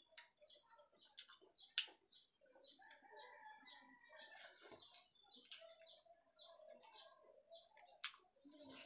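Faint eating sounds, a few sharp mouth and hand clicks as rice is eaten by hand from a steel plate, over birds chirping in the background about three times a second.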